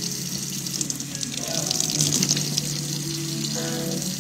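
Kitchen tap running into a sink in a steady hiss, with background music playing under it.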